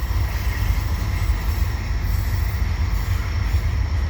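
Freight train rolling slowly past with a steady low rumble.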